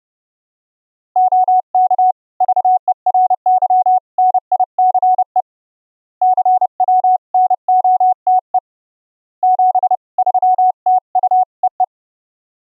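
Morse code keyed as a pure sine-wave tone from a software CW oscillator: an LV2 sine generator, gated by a 555 timer's square wave from a CW keyer and iambic paddles, then band-pass filtered for smooth rise and fall. The single clean tone sends dits and dahs in three runs with two short pauses, starting about a second in.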